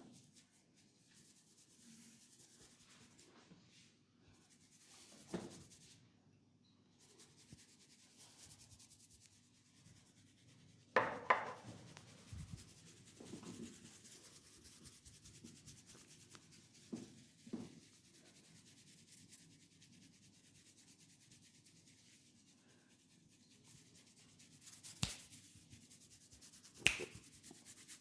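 Hands rubbing and kneading skin during a head and neck massage, a faint soft rustle. A few sharp clicks and taps break through, the loudest about eleven seconds in and two more near the end.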